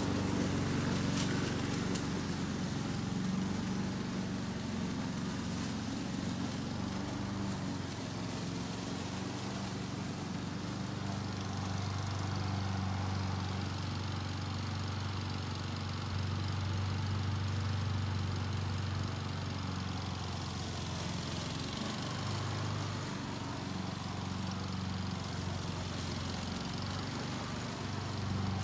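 Walk-behind gas lawn mower engine running steadily at mowing speed as it cuts grass.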